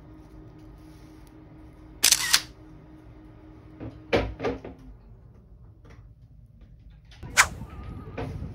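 Kitchen handling sounds around a sesame seed shaker and plate: a short rattle about two seconds in, a few light knocks around four seconds, and a sharp click near the end, over a faint steady hum.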